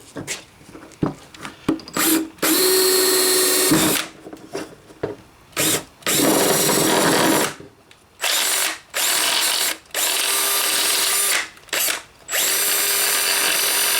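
Power drill boring a 1-inch hole through a headlight dust cover, running in a series of bursts of one to three seconds with short pauses between them.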